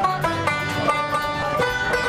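Banjo and acoustic guitar playing a tune together: a quick run of plucked banjo notes over short, repeated guitar bass notes.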